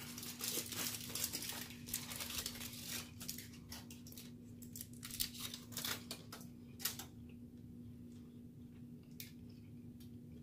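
Foil food wrappers crinkling and rustling in a run of small crackles and clicks, thinning out after about seven seconds, over a faint steady hum.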